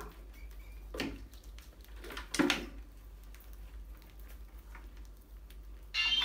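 Mice scrabbling and scratching around glass water-jar traps, with light clicks throughout and two thuds, the louder about two and a half seconds in, as a mouse drops into a jar of water.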